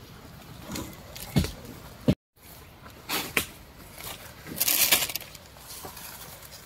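Rustling of brush and leaves with a few sharp snaps and knocks, the loudest rustle about five seconds in; the sound cuts out completely for a moment just after two seconds.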